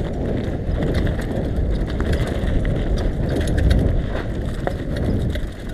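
Bicycle rolling downhill over a rough dirt track: steady rumble from the tyres and wind on the microphone, with many small clicks and rattles from the bike as it runs over the bumps.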